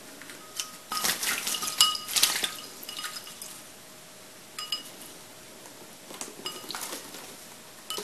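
A pineapple green-cheeked conure bathing in a ceramic bowl of water: two bouts of small splashes, with light clinks against the bowl.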